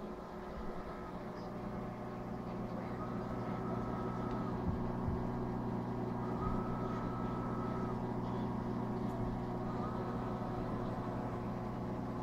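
Pumps of a Red Sea Max 250 reef aquarium running with a steady hum, which grows a little louder over the first few seconds. A faint higher tone comes and goes every few seconds.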